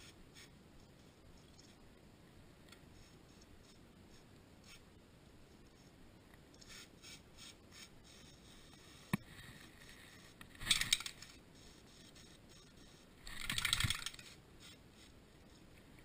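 Two short hissing bursts from a Fluid Film aerosol spray can being sprayed onto the battery cable connectors, the second burst a little longer, about two and a half seconds apart. A single sharp click comes about a second and a half before the first burst.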